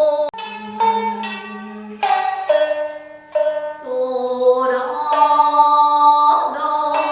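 Jiuta-style shamisen played with a plectrum: a slow, delicate phrase of single plucked notes, each with a sharp attack that rings out and fades. About a third of a second in, the sound cuts off abruptly, then the playing resumes.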